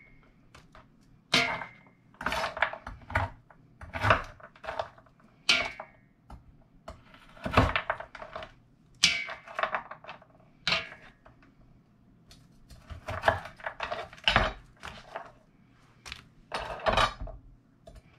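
Knife chopping broccoli florets on a wooden cutting board, with pieces dropped into a large pot: irregular sharp knocks and clacks, some ringing briefly.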